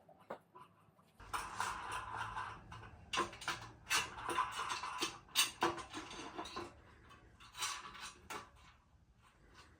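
Bicycle parts being handled in a workshop: an irregular run of small metallic clinks, clicks and rattles that starts about a second in and fades out near the end.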